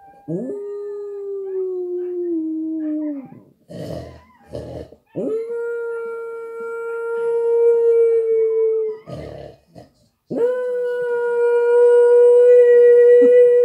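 Australian terrier howling three long howls, the first sliding slightly down in pitch and the next two held steady, the last the loudest. The dog is howling along to dogs heard on the TV.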